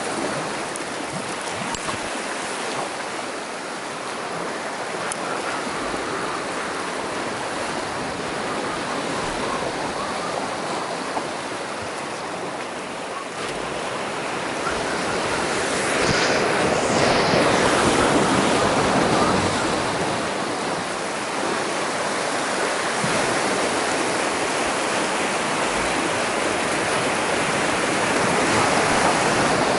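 Sea surf washing over and around shoreline rocks: a steady rushing wash that swells louder for a few seconds about halfway through.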